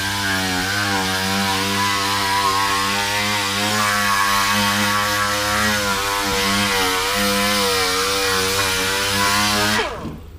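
A motor-driven machine running steadily at one constant pitch with a hissing edge, stopping abruptly near the end.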